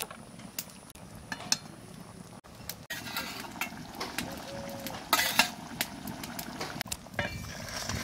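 A long metal spatula scraping and clinking against a steel plate and an aluminium kadai as fried pieces of steamed egg are pushed into the curry and stirred in. Scattered sharp knocks and clinks, with brief metallic rings, grow busier after about three seconds.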